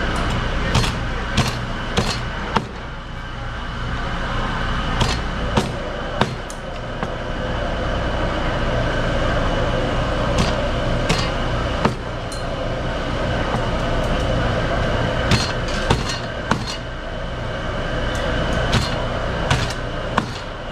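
Chinese cleaver chopping filefish into pieces on a plastic cutting board: sharp chops in short runs of two to four strokes with pauses between, over a steady background hum.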